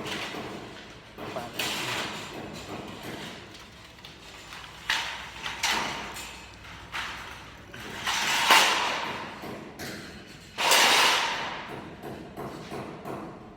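Irregular thuds and knocks of construction framing work, about five louder ones among smaller knocks, each with a short ring of echo.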